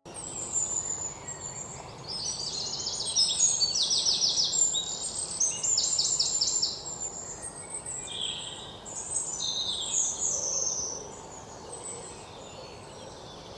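Several birds singing and calling together, with rapid trilled series of high notes and shorter chirps, over a steady outdoor hiss; it begins abruptly and the calls grow sparser in the second half.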